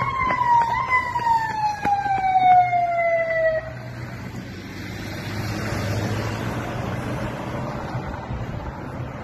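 An emergency vehicle's siren wails, its pitch sliding slowly down before it cuts off about three and a half seconds in. After that comes the steady rush of vehicles driving past at speed.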